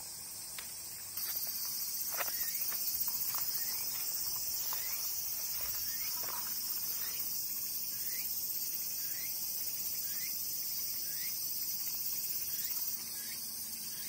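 Cicadas droning in a steady high-pitched buzz, louder from about a second in until about a second before the end. Light rustles and snaps come from plants being handled.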